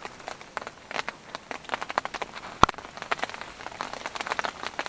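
Hail and rain striking nearby surfaces: a dense run of irregular sharp ticks over a faint hiss, with one louder click a little past halfway.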